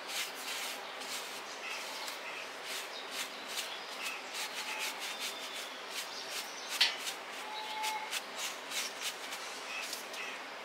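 Repeated strokes of a small hand brush through a plush teddy bear's fur, a quick scratchy rasp several times a second, with one sharper click about seven seconds in.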